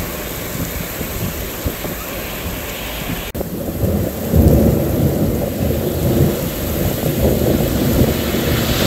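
Heavy rain pouring down, a steady hiss. After a break about a third of the way in, a deep, uneven rumble joins it.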